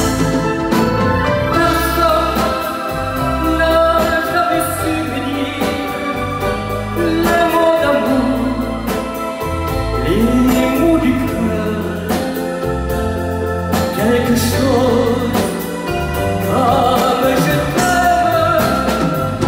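Male vocalist singing a French ballad with a live band accompanying him.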